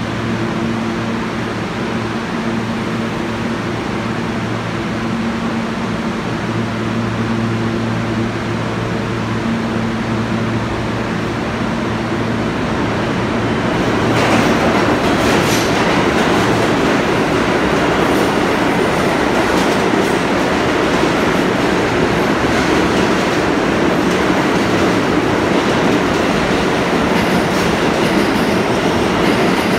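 New York City subway in an underground station: a steady hum at first, then from about halfway in the louder rumble of a train running in on the near track, with wheel clicks over the rail joints.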